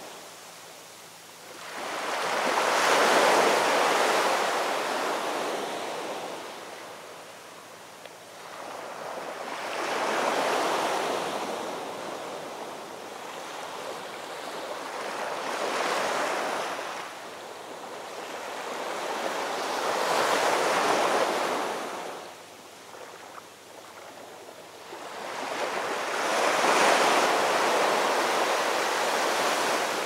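Sea waves breaking over shore rocks and washing up a sandy beach: a rushing hiss that swells and fades five times, every five to seven seconds.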